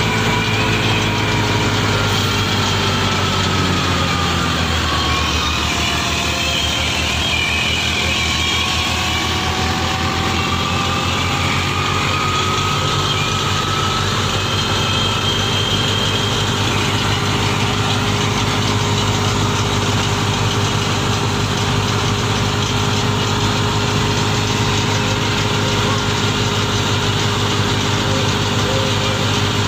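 Fiat 480 tractor's diesel engine running steadily; its note dips a few seconds in and picks up again.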